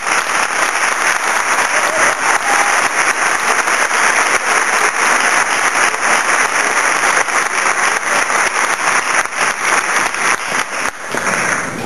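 Audience applauding, a dense steady patter of many hands that dies away shortly before the end.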